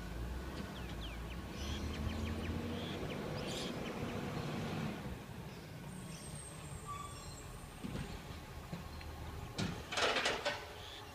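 Distant recycling truck's engine running with a steady low rumble, and a loud hiss about ten seconds in.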